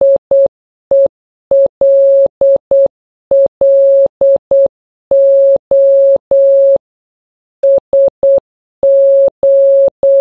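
Morse code beeps: a single steady electronic tone keyed on and off in short dits and long dahs. The pattern spells the end of "HELLO" (dit, dit-dah-dit-dit twice, dah-dah-dah) and then "SOS" (dit-dit-dit, dah-dah-dah), with the final letter cut off at the end.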